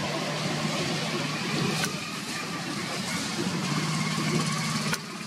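A motor vehicle engine running steadily, heard as a low, even hum under outdoor background noise. The sound drops abruptly a little before the end.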